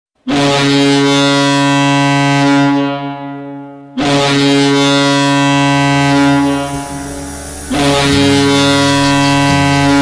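The New Jersey Titans' ice hockey goal horn sounds three long, deep blasts of about three seconds each. The goal song starts underneath during the second blast.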